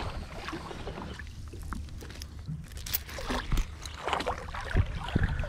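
Shallow seawater sloshing and splashing lightly around a beached aluminium dinghy, with a few scattered light knocks and wind rumbling on the microphone.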